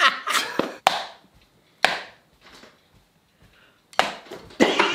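A drumstick knocking sharply on a hard surface, twice about a second apart, then again near the end. Each knock is short and dies away quickly.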